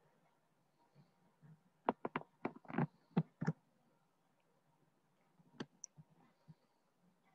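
A quick run of about seven sharp clicks, like clicking at a computer, about two seconds in, then one more click a couple of seconds later, over faint room tone.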